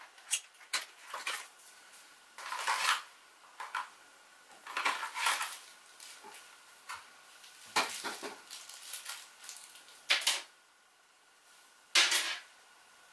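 A small box and its packaging being handled and opened: irregular rustling, scraping and clicking, in bursts of varying length, the loudest near the end.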